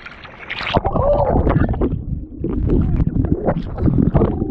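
Muffled underwater rumble and handling knocks from a camera being picked up off the sea bottom, with a few bubbling chirps.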